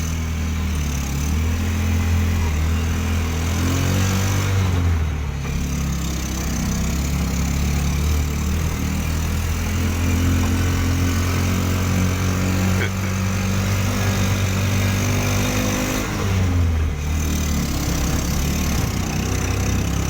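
Motorcycle engine fitted in a small Suzuki ST20 car, running steadily under load as the car drives. The engine note shifts about 5 seconds in and again about 17 seconds in.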